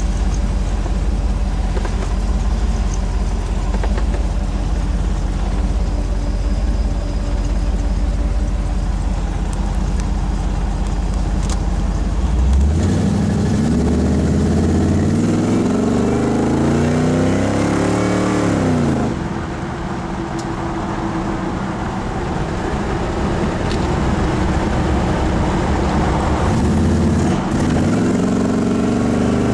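Customized 1956 Chevy 3100 pickup's engine heard from inside the cab: it idles with a low rumble for about twelve seconds, then climbs in pitch as the truck accelerates. It drops back suddenly a few seconds later, runs steadily, and climbs again near the end.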